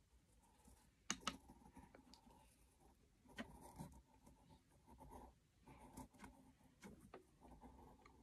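Faint scratching and light tapping of a pencil on paper while drawing, with a couple of sharper clicks about a second in.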